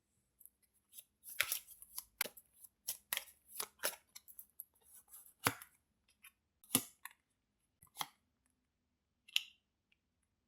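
Tarot cards being handled and laid down: a dozen or so short, sharp snaps and taps, irregularly spaced with gaps of up to a second or more.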